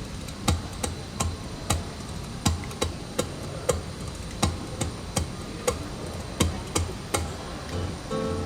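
Steady rhythmic percussive tapping, about two and a half knocks a second, each with a low thump and a sharp click, setting the beat for a song. Acoustic guitar comes in just before the end.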